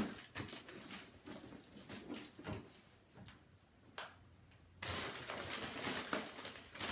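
A cardboard box knocks down at the start, then a few light handling knocks. From about five seconds in comes steady rustling as a bag is unpacked.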